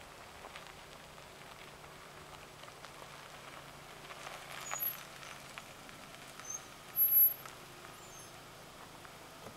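Compact SUV rolling slowly over a frosty gravel driveway, its engine a faint steady low hum under light crunching of tyres on gravel. A brief loud, high squeak comes about seven seconds in.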